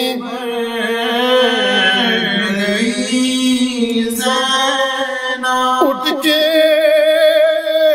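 A man reciting a marsiya, a mournful Urdu elegy, as unaccompanied sung chant. He draws out long held notes with a wavering ornament, and the melody moves to a new note about four seconds in.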